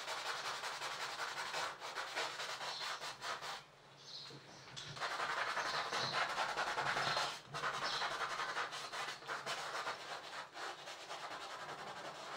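Paintbrush strokes scratching across a canvas, in runs of a few seconds with short breaks, the loudest run from about five to seven seconds in.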